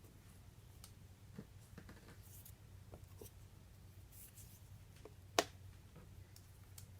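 Quiet, sparse handling sounds at a tabletop board: faint clicks and two short scratchy rustles, with one sharper click about five seconds in. These come as letters are changed to spell the next word.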